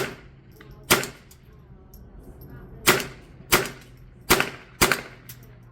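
.22 LR rimfire gunshots: six sharp reports fired at an uneven pace while shooting steel targets, one about a second after the first, then the rest in quick pairs.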